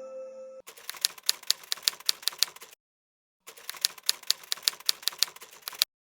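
Typewriter keystroke sound effect: two runs of rapid key clacks, each about two seconds long, with a short silent gap between them.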